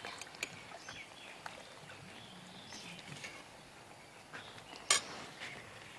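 Faint scattered clicks of cooking utensils, with one sharp metal clink against a pot about five seconds in.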